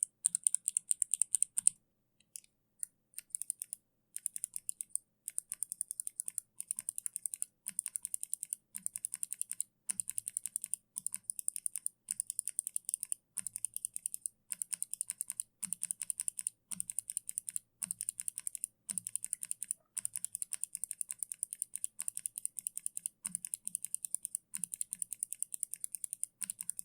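Fast typing on a mechanical keyboard fitted with Kailh switches: a dense run of key clicks. It breaks off for a moment about two seconds in, then carries on a little quieter.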